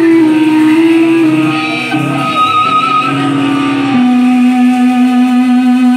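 Live rock band playing amplified electric guitar and bass guitar, loud. About four seconds in the playing settles onto one long held note.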